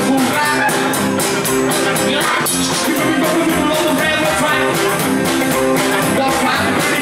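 Rockabilly band playing an up-tempo number: guitar over a fast, steady drum beat.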